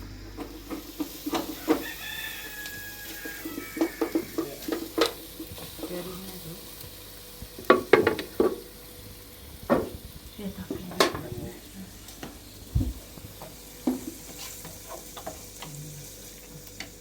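Irregular clatter of kitchen utensils: sharp knocks and clicks as a pot or pan is stirred and handled, over a faint steady hiss. A short high-pitched call sounds about two seconds in.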